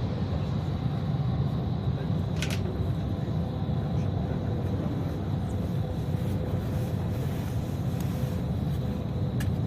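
Bus engine and road noise: a steady low rumble with a faint constant whine. There is a short sharp tick about two and a half seconds in and another near the end.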